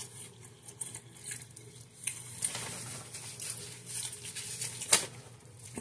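Soft crackling and rustling with scattered small clicks: a sub sandwich being lifted off its paper wrapper and eaten.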